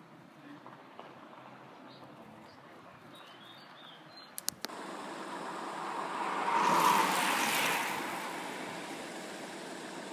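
A road vehicle passing close by: its even tyre-and-engine noise swells to a peak about two thirds of the way in and then fades away. Earlier there is faint outdoor background with a few bird chirps, and two sharp clicks come just before the roadside noise steps up.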